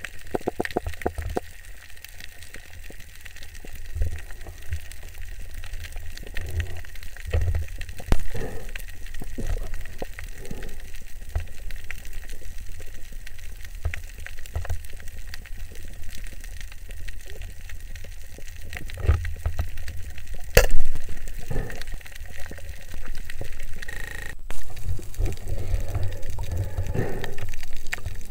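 Muffled underwater sound picked up by a camera in a waterproof housing during a reef dive: a steady low rumble of water movement with scattered small clicks, and one sharp knock about two-thirds of the way through.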